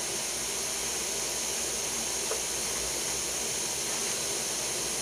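Steady hiss of background noise, with a faint click a little past two seconds in.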